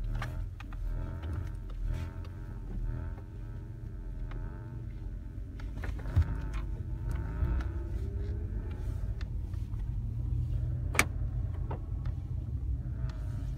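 Cabin sound of a 2005 Acura RL rolling off slowly in drive: a low engine and road rumble with a buzzing rattle from the passenger-side front speaker panel, a buzz that shows up when the car is in gear at low speed. One sharp click about eleven seconds in.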